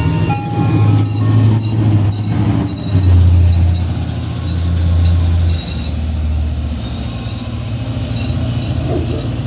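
Ice cream truck driving away: a steady low engine rumble, with its jingle music fading to faint high notes. The rumble drops a little about five and a half seconds in.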